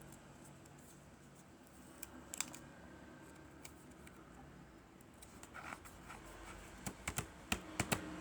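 Scattered light clicks and taps of small objects and packaging being handled, with a brief rustle just past halfway and a run of sharper clicks near the end.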